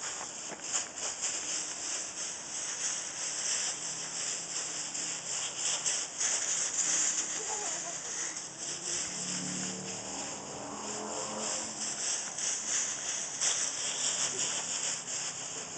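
Dry fallen leaves crunching and rustling as feet run and kick through a thick leaf pile, a continuous irregular crackle.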